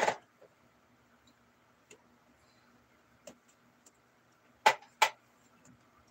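A few sharp taps and clicks over a faint steady hum, the loudest a pair of quick taps about a third of a second apart near the end.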